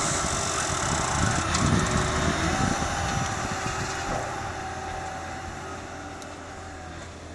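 Case IH Quadtrac tractor's big diesel engine working under load while the front dozer blade pushes soil. The engine and track noise then fade steadily as the machine drives away.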